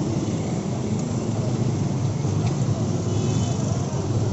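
Steady roadside traffic noise: vehicle engines running in a continuous rumble.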